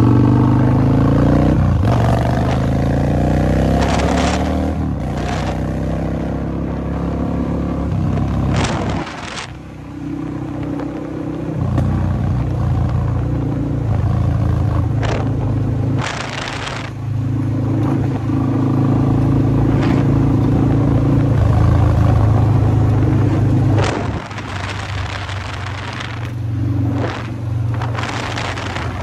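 Kawasaki Vulcan 1600 Mean Streak V-twin engine running under way, its note falling at first, easing off about nine seconds in and again near 24 seconds, and holding steady in between. Short gusts of wind noise hit the microphone several times.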